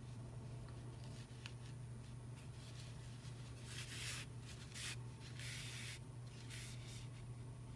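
Faint swishing and rubbing of yarn being drawn across a yarn-wrapped ball and fingers rubbing on its surface, in a few short bursts from about four to six and a half seconds in, over a steady low hum.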